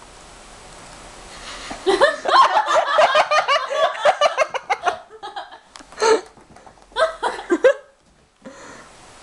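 People laughing: a long run of laughter starting about two seconds in and lasting about three seconds, then a few shorter bursts of laughter.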